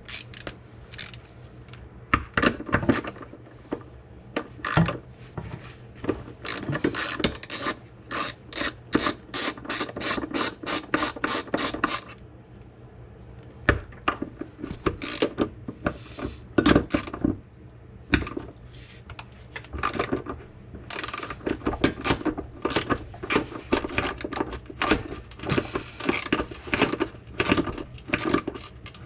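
Socket ratchet wrench clicking in runs of quick strokes while a transmission mount fastener is loosened. The clicking stops about twelve seconds in and starts again around twenty seconds.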